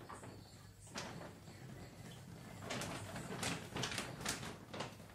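A run of short clicks and knocks from hard objects being handled, one about a second in and several closer together in the second half, over a low steady hum.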